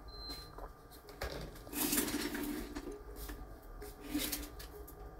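Hot air rework station running with a steady low hum while metal tweezers tap and clink against small surface-mount components on a silicone mat. The loudest clatter is about two seconds in, with another near four seconds.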